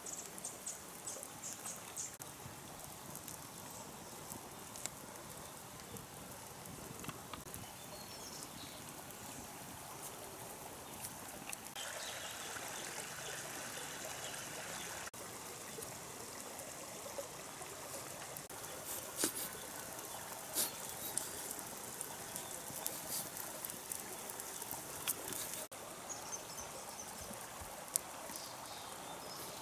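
A stream trickling steadily, with scattered clicks and a few high chirps near the start and near the end.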